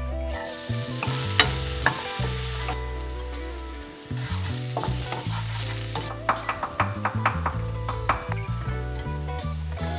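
Diced red onion sliding off a cutting board into hot oil in a skillet and sizzling as it lands, with a couple of sharp clicks from the knife scraping the board. The sizzle drops back, flares up again about four seconds in as more goes into the pan, then eases, and a quick run of light clicks comes through the middle.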